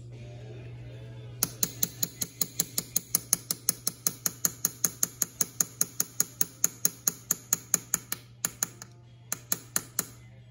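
Small hammer tapping a 3/32 pin punch in quick, light, ringing strokes, about five a second, driving the roll pin out of a Quadrajet carburetor's accelerator pump lever. The tapping pauses briefly, then a few last strokes come near the end, over a steady low hum.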